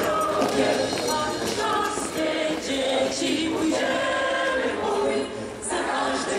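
A group of voices singing together in chorus, a song sung in held notes.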